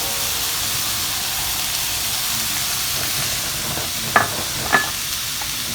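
Chopped vegetables sizzling in a frying pan in bacon and steak drippings: a steady frying hiss. Two short clinks come a little after four seconds and just before five seconds.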